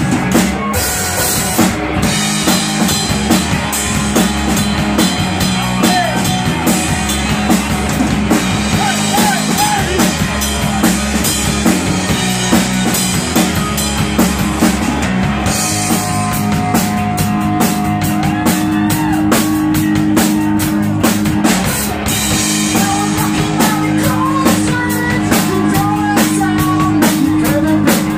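Rock band playing live: a drum kit driving a steady beat under electric guitar with held notes.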